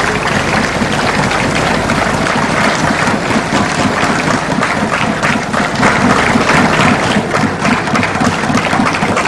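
Crowd of spectators applauding steadily.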